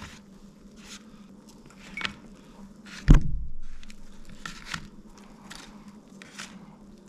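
Faint taps and rustles of coconut-crusted fried fish pieces being handled and set down on a wooden plate, with one sharp knock about three seconds in. A faint steady hum runs underneath.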